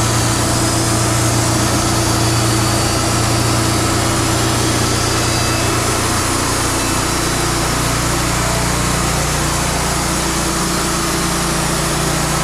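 Wood-Mizer LT50 band sawmill running steadily under its engine, with the engine note changing about seven seconds in.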